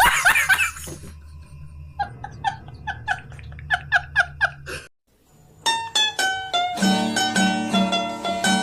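Short comedy music stings: a brief tail of laughter, then a quick plucked-string tune of short repeated notes, a brief break about five seconds in, and a second, fuller plucked-string tune.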